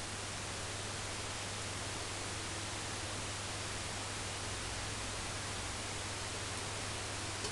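Steady hiss with a low, even hum: room tone with no distinct sound events.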